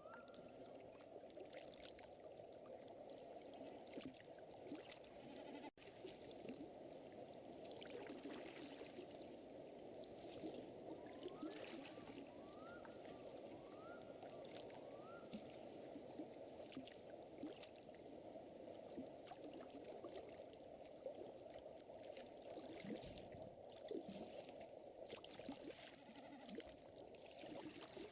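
Faint wood fire crackling with scattered pops over a steady soft rush of water. Near the middle come four short rising calls about a second apart.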